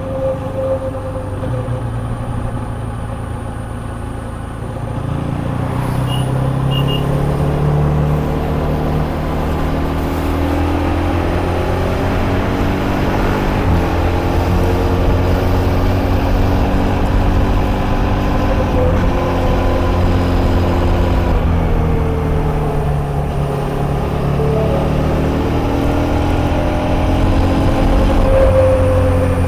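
KTM Duke 250's single-cylinder engine pulling on the move, its pitch climbing about five seconds in as the bike accelerates. The revs then rise and drop back several times through gear changes.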